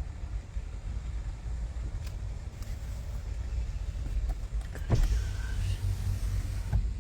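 Car driving, heard from inside the cabin: a steady low road rumble. About five seconds in there is a sharp click, then a louder rush of noise for nearly two seconds.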